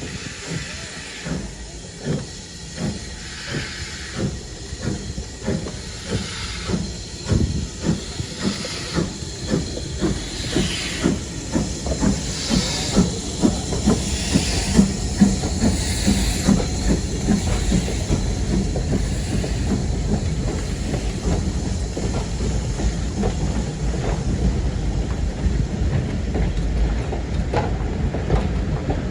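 Steam locomotive working a train, its exhaust beats quickening and growing louder as it gathers speed, then blending into a steady rumble of the train running on the rails about halfway through, with steam hiss throughout.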